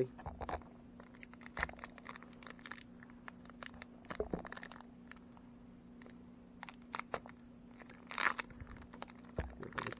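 Plastic wrapper of a Donruss baseball card pack crinkling and crackling in the hands as it is torn open, in short, irregular crackles. A faint steady hum sits underneath.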